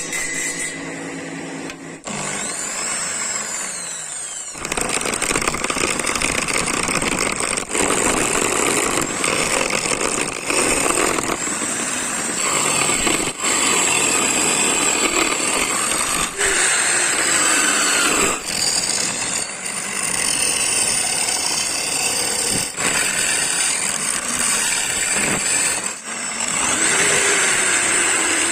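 A handheld power tool running and cutting or sanding wood, in stretches broken by short pauses.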